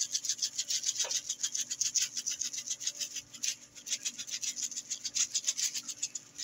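A plastic shaker jar of Tone's rosemary and garlic seasoning shaken rapidly, the dried herbs rattling in quick, even strokes several times a second and thinning out near the end.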